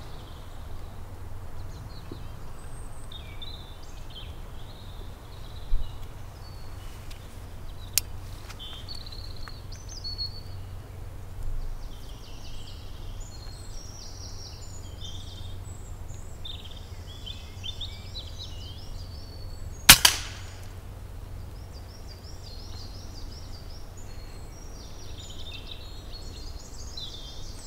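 Woodland birds chirping and trilling throughout. About two-thirds of the way through, one sharp shot from an FX Impact Mk2 PCP air rifle, followed a split second later by a smaller crack: the pellet striking the grey squirrel's head.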